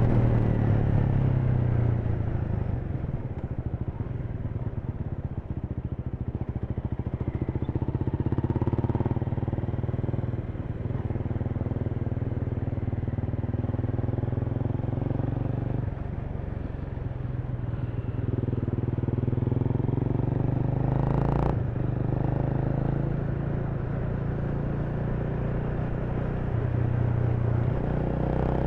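Honda Rebel 300's single-cylinder engine running as the bike is ridden through traffic, its note dropping and picking up again a few times with the throttle. A brief sharp sound cuts in about two-thirds of the way through.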